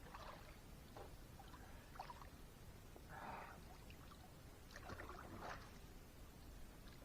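Faint water splashing and sloshing from a person bathing in the reservoir, a handful of short splashes over a quiet background.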